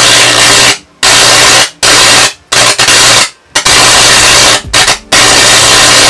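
High-voltage arc from a microwave oven transformer's roughly 2,700-volt secondary burning into a raw beef steak: a loud, harsh buzz over a steady low hum. It cuts out briefly and restarts about five times, with an unbroken stretch near the end.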